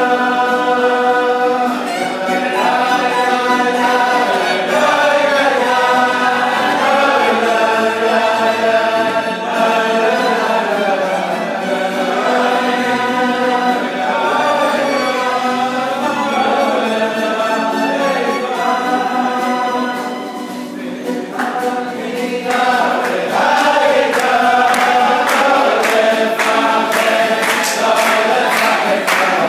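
A group of men singing a Hasidic tune together, with violin and guitar accompaniment. After about twenty seconds a steady beat of sharp strikes joins the singing.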